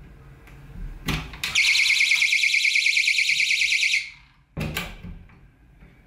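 A couple of door knocks, then a battery-powered magnetic door sensor alarm sounds a loud, rapidly pulsing high-pitched tone for about two and a half seconds, set off by the door opening and pulling the sensor away from its magnet. It cuts off suddenly and is followed by a couple more knocks from the door.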